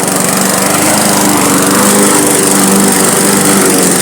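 Small gasoline lawn mower engine running steadily while cutting grass.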